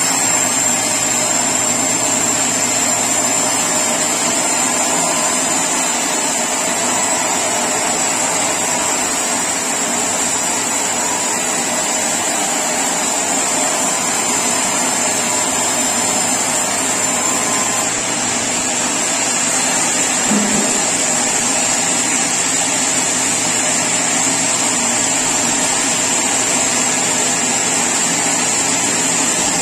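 Sawmill saw machinery running steadily, a continuous mechanical noise with a high, even whine.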